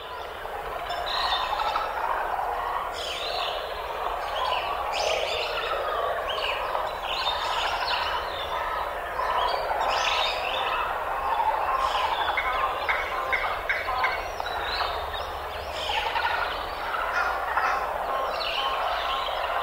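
Many birds calling at once: a dense, continuous chatter of short overlapping calls and chirps.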